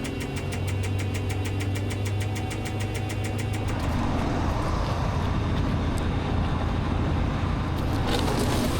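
Grove crane's diesel engine running steadily with a fast, regular ticking over it, then picking up to a rougher, louder running about four seconds in.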